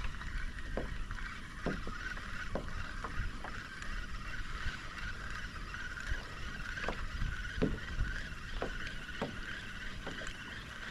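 Small waves slapping irregularly against a fishing kayak's hull, a soft knock about once a second, over a steady hiss.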